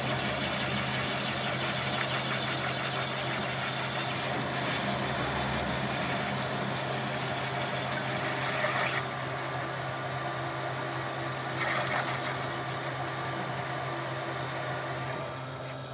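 Lathe drilling a metal workpiece with a twist drill, over the steady hum of the lathe's motor. For about the first four seconds the drill squeals in rapid pulses, about six a second. The cut then runs on more evenly, with another short run of squeal pulses a little past the middle.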